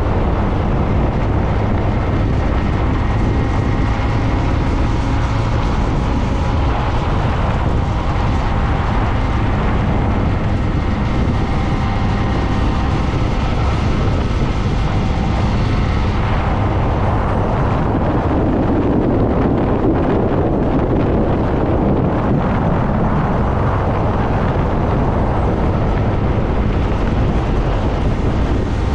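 Wind rushing over the microphone of a moving motorcycle, with the engine running steadily underneath. A little past halfway the hiss fades and the rush turns duller.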